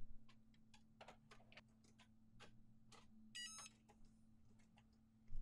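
Cricut Mug Press giving one short, high-pitched electronic beep a little past the middle, the signal that the pressing cycle is done. Otherwise near silence with a few faint clicks.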